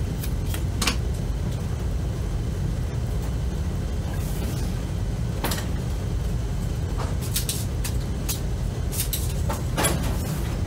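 Scattered clicks and knocks of objects being handled and set down, over a steady low hum.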